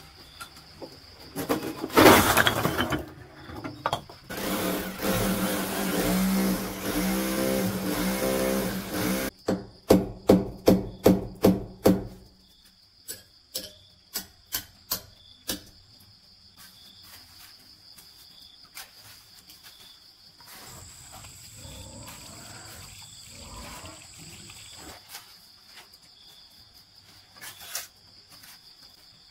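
A loud rough noise, then a motor running steadily for about five seconds, then a quick series of sharp knocks, about four a second, that fade to lighter, sparser taps.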